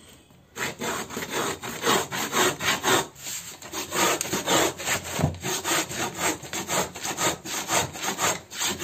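Marking gauge's steel pin scraping back and forth along a 4 mm hardboard sheet, scoring a line deeper with quick repeated strokes, about three a second, to cut a strip off the sheet. There is a short break about three seconds in.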